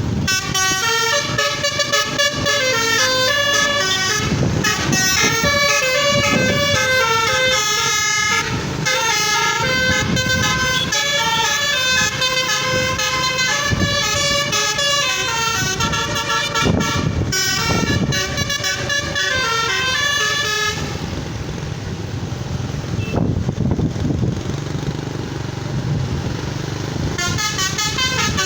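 Telolet multi-tone bus horn playing a fast melody in quick stepped notes over engine noise. The tune breaks off about 21 seconds in, leaving only the engine and road noise for several seconds, then starts again near the end.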